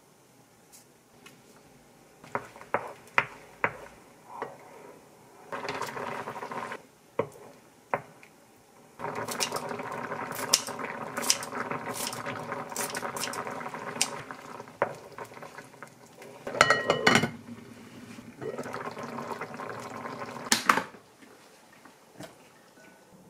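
A pot of rosé tteokbokki simmering: the creamy sauce bubbling, with kitchen scissors snipping green onion into it and clinks of utensils against the pot. A glass lid clatters onto the pot near the end.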